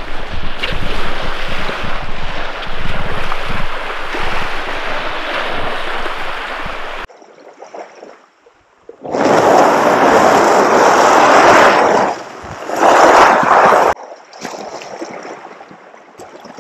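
Wind buffeting the microphone. Then the sea kayak's hull scrapes loudly over a pebble beach as it is pulled toward the water, in two drags of about three seconds and a second and a half.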